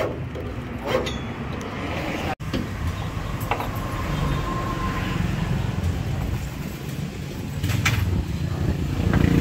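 Hands peeling and pressing down a strip of 3M Safety-Walk anti-slip tape, heard as a few short crackles and rustles, over a steady low rumble.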